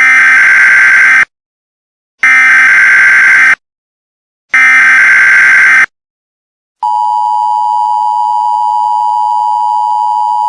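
Loud Emergency Alert System tones: three harsh digital SAME header bursts, each about a second long with a second's gap between them, then, about seven seconds in, the steady two-tone EAS attention signal, which announces the warning message that follows.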